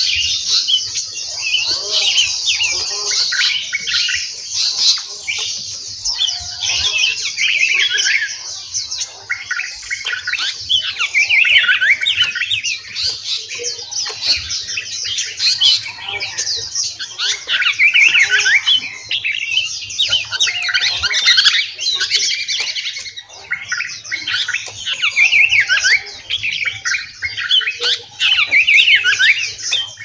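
Several songbirds chirping and whistling together in a dense, continuous chorus of overlapping short calls and sweeping phrases.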